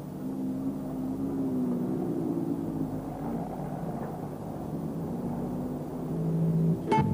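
City street traffic: vehicle engines running as a low, uneven hum. A sharp click comes just before the end.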